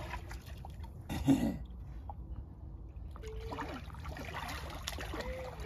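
Sea water lapping and trickling at the shore, with a short louder sound about a second in.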